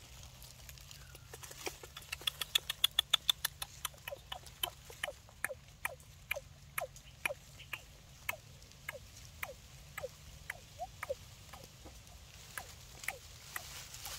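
A young animal's series of short, high squeaks. They come fast at first, then settle to about two a second, each one falling in pitch.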